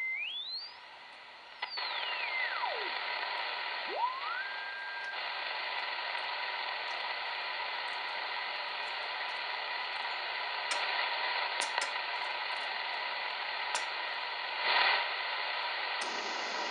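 R-390A tube communications receiver's audio with the BFO on: steady band hiss with a heterodyne beat-note whistle that sweeps up very high, falls low and climbs to a steady tone as the dial is tuned across a signal. The whistle stops about five seconds in, leaving steady hiss with a few faint crackles.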